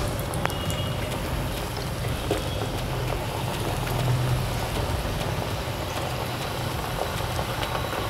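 Coconut vadas deep-frying in hot oil, a steady sizzling and crackling as the freshly dropped batter patties bubble.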